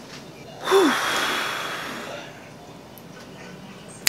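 A woman's loud, breathy exhale after a drink of water. It begins with a brief falling voiced "ah" and fades out over about a second and a half. A sharp click comes near the end.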